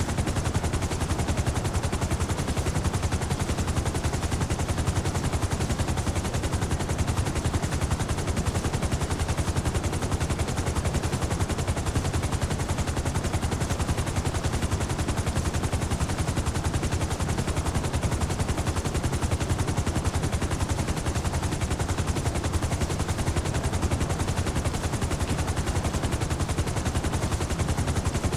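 Helicopter rotor blades beating in a rapid, steady, low chop that holds unchanged throughout.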